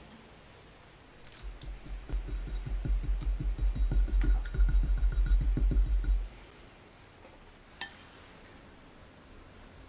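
Rhythmic scraping, about five strokes a second for about five seconds, from an offset spatula smoothing cream on a layer cake on a turntable, stopping suddenly, then a single sharp click.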